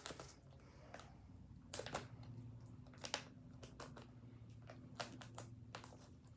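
Faint, scattered crinkles and clicks of plastic shrink wrap being picked at and handled on a Steelbook case, over a low steady hum.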